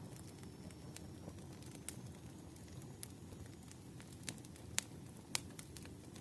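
Wood campfire burning: a steady low rumble of flames with scattered sharp crackles and pops, the loudest two pops a little past the middle.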